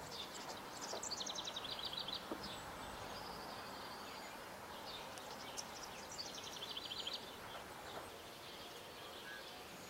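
A small bird singing: a rapid trill of evenly repeated high notes about a second in, a few scattered chirps, then a second similar trill around six seconds in, over a steady background hiss.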